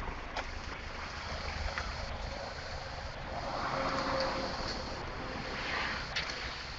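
Steady outdoor rushing noise with a low rumble underneath, swelling louder about halfway through and again near the end, with a few faint clicks.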